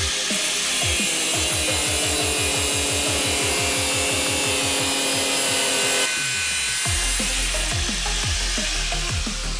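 Angle grinder cutting steel plate with a steady whine and hiss that stops abruptly about six seconds in. Electronic dance music with a steady bass beat plays throughout.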